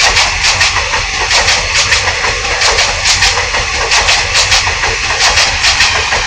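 A heavy engine running steadily, with a quick, irregular clatter of sharp clicks over it.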